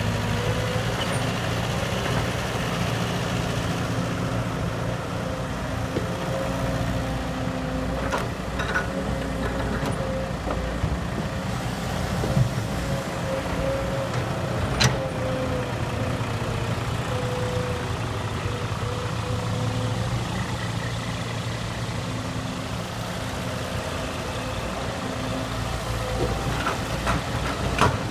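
Excavator's diesel engine running steadily under the digging work, with a faint wavering whine over it and a few sharp knocks, the loudest about halfway through.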